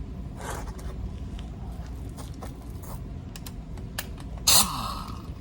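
Small metallic clicks of lug nuts and tools being handled, then near the end a short burst from an impact wrench, its pitch falling as it drives a lug nut onto the wheel.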